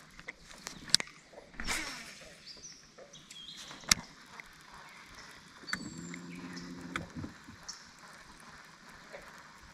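Fishing tackle being handled during a cast: two sharp clicks and a swish, with faint bird chirps. A short low sound in several tones comes about six seconds in.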